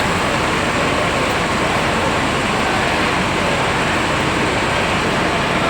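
Steady vehicle and traffic noise, an even rumble and hiss with no distinct events.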